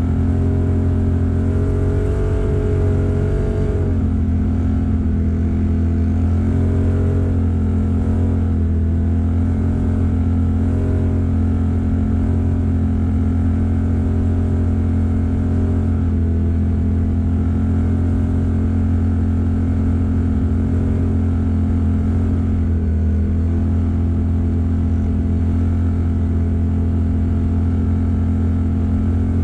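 Vehicle engine running steadily while driving over a gravel road, with a constant rumble of tyres on gravel underneath. The engine pitch wavers slightly a few times in the first eight seconds, then holds even.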